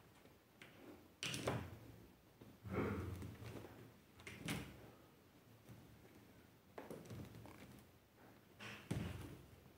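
About five dull knocks and bumps at irregular intervals of one to two seconds, each with a brief rustle after it.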